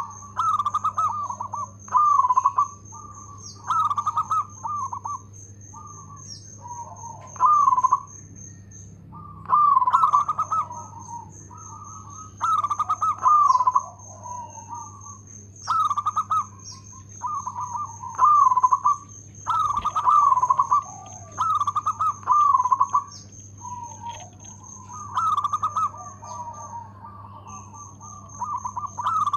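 Zebra dove (local perkutut) cooing: a steady run of short, staccato rolling coo phrases, one every two seconds or so, loud and clear.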